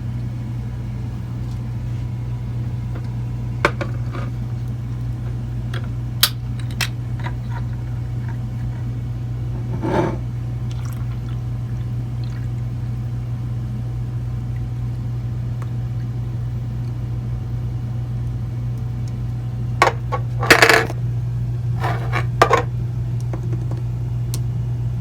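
Drinks being mixed by hand: scattered clinks and knocks of bottles and glasses, with a brief cluster of them about twenty seconds in, over a steady low hum.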